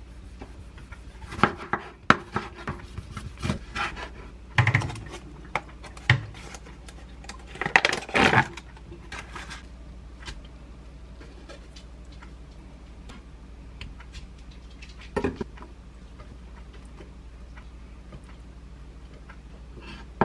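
Chef's knife cutting a tomato on a wooden cutting board: irregular knocks of the blade on the board over the first half, with a longer scraping burst a little after eight seconds. A short clatter of kitchen handling follows about fifteen seconds in.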